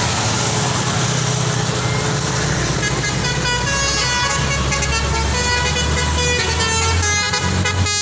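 A bus's engine running, then about three seconds in its 'telolet' basuri horn starts playing a tune of short, changing notes.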